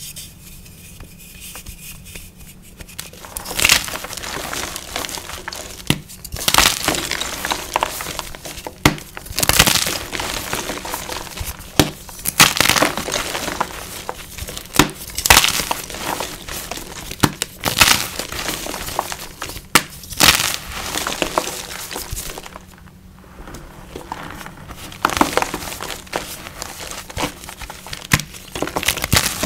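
Soft, crispy freshie blocks coated in neon powder being squeezed and crushed in bare hands: repeated sharp crunches with powdery crumbling between them, after a few seconds of light handling at the start.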